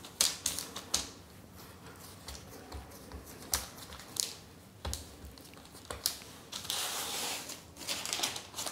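Hands pressing and patting a ball of cashew dough flat on butter paper over a plastic board: scattered light taps and clicks, with the paper crinkling, a longer rustle of it about seven seconds in.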